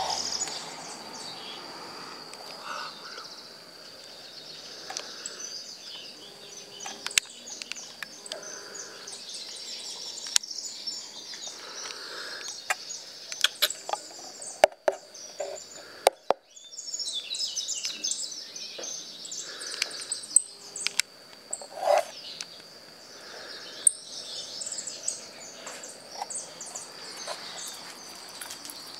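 Captive finches chirping and twittering almost continuously over a thin steady high tone, with scattered clicks and knocks from the wooden nest box and wire cage being handled.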